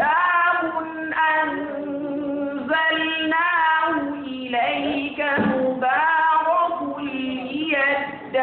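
Melodic Qur'an recitation (tajwid): a single high voice holding long, ornamented notes with wavering pitch glides, phrase after phrase.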